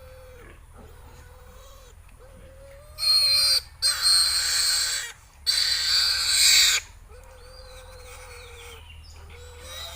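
A piglet squealing in three long, loud screams starting about three seconds in, as it is held for an injection. Behind it, a faint steady call repeats about once a second.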